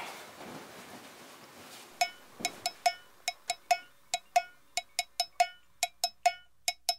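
A faint hiss, then from about two seconds in a percussion instrument, wood-block-like, tapping a quick, uneven rhythm of sharp ringing knocks, all on the same pitch: the lead-in to a drum-driven music track.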